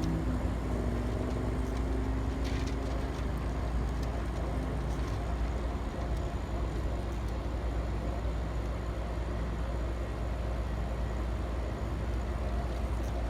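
Strong wind blowing over the microphone: a steady low rumble, heaviest at the bottom end.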